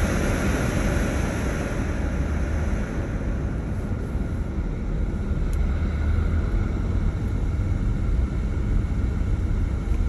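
An engine running steadily with a continuous low rumble and a steady rushing noise over it.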